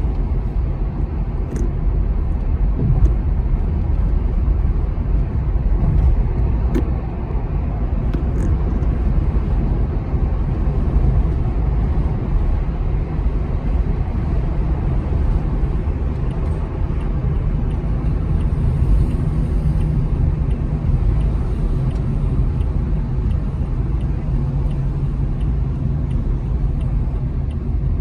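Steady low rumble of a car's rear tires heard from inside the cabin while driving. The tread is worn wavy and uneven, which makes the constant rumble that can be mistaken for a bad wheel bearing.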